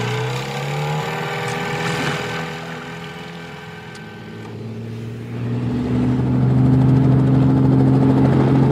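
Cartoon helicopter engine sound effect. It starts with a rising whine, settles into a steady hum, and grows louder about halfway through as the helicopter lifts off.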